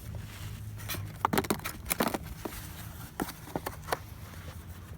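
Hands loading plastic Easter eggs into an RC airplane's wing payload bay: a few irregular light clicks and knocks, over a low steady hum.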